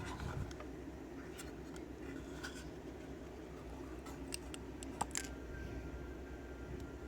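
Small metallic clicks and taps of lock pins and parts being handled, spaced irregularly, with a sharper click about five seconds in.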